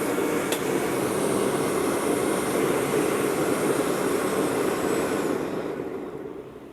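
Electric blower forcing air into a wood-fired stove: a steady rushing roar of fan and fire with a faint high whine. It dies away over the last second or so as the air supply is turned down. A single click comes about half a second in.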